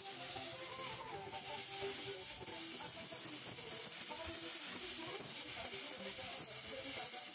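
Steady hiss of a gas welding torch flame while aluminium is melted and filler rod is fed into the weld pool.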